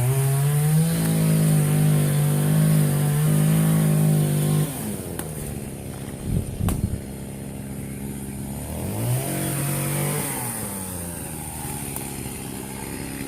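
Small two-stroke engine of a handheld landscaping power tool revving up to full throttle and holding there for about four seconds, then dropping back to idle. It revs up briefly once more and falls back to idle, with a few short knocks in between.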